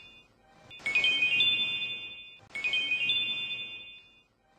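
A ringtone-like electronic chime: a quick rising run of four or five bell-like notes that ring on and fade. It starts about a second in and again near the middle, repeating about every second and three-quarters.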